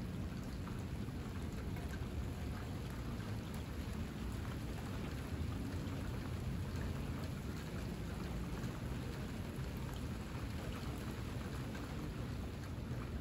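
Steady rain falling, an even hiss of many fine drops with a low rumble underneath.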